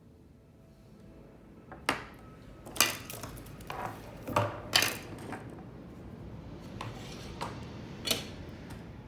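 A handful of sharp clicks and knocks of small hard parts or tools being handled and set down during a repair, the loudest about three and five seconds in, over a steady low background noise.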